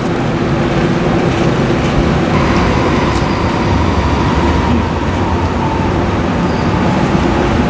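Steady street traffic noise, with a large vehicle's engine running close by: a low rumble with a steady hum held for several seconds.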